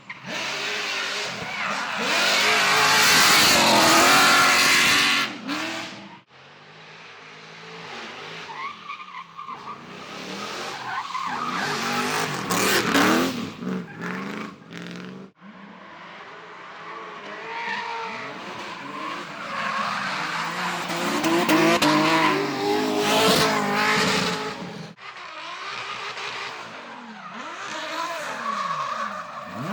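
Drift cars running hard at high revs, engine pitch climbing and dropping as the throttle is worked, with tyres squealing and skidding through slides. Several separate passes follow one another, each cut off abruptly.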